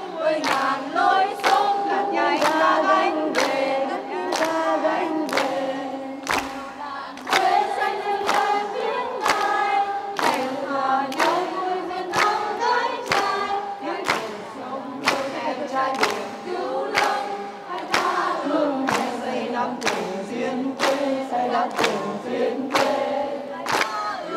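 A large crowd singing a song together, with a sharp steady beat of hand claps about three every two seconds.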